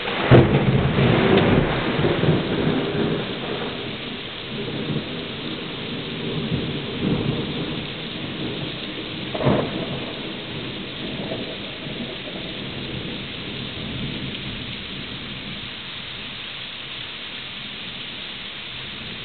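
Thunder over steady rain. A sharp crack just after the start rolls into a long rumble, and a second loud crack comes about nine seconds in. The rumble then dies away, leaving the hiss of rain.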